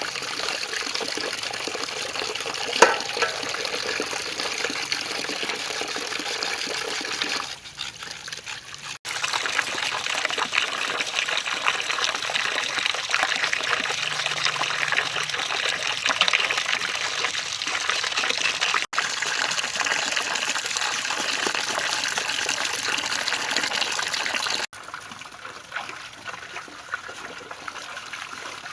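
Water pouring and splashing steadily, with the sound changing abruptly several times as separate clips cut in and out.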